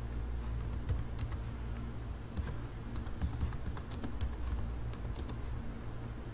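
Typing on a computer keyboard: irregular keystroke clicks, a few about a second in and a quicker run in the second half, over a low steady hum.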